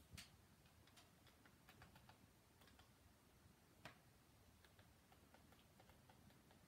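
Near silence with a few faint clicks, the clearest just after the start and about four seconds in: a TV remote control's buttons being pressed.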